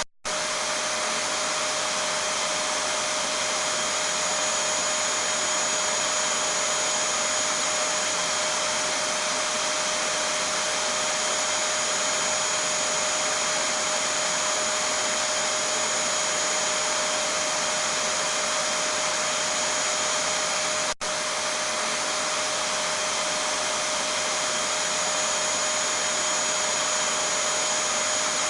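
Vacuum cleaner running steadily: an even, loud whooshing hum with a steady mid whine and a high whistle. It cuts out for a split second twice, at the very start and about two-thirds of the way through.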